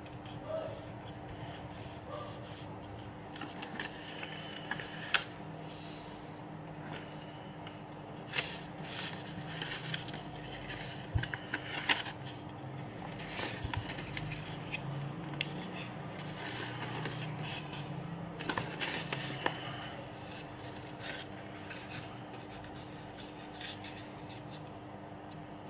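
Origami paper rustling and crackling as it is folded and creased by hand, with scraping as the fingers run along the folds. The crackles come in clusters, thickest through the middle stretch, over a faint steady hum.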